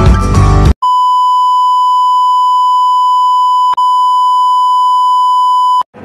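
Background music cuts off abruptly less than a second in. A steady, high-pitched electronic beep tone follows for about five seconds, with a brief dip about three seconds in, and stops just before the end.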